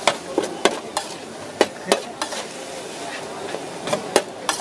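Metal spatula scraping and clacking against a wide steel pan in about nine sharp, irregular strokes while shredded cabbage and green onion stir-fry over a steady sizzle.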